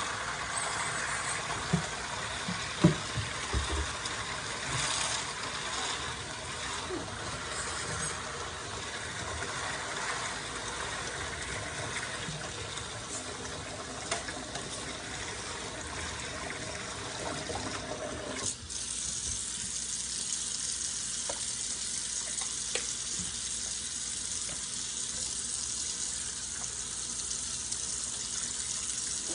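Tap water running as a dyed wig is rinsed out under the stream, with a few knocks in the first few seconds. About two-thirds of the way through, the sound of the water changes suddenly to a thinner, higher hiss.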